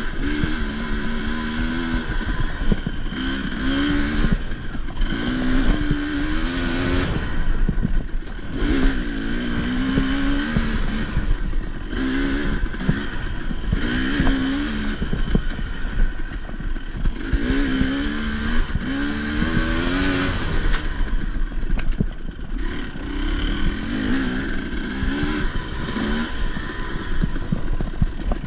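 Enduro dirt bike engine revving up and falling back again and again, every second or two, as it is ridden hard over rough trail, with knocks and rattles from the bike.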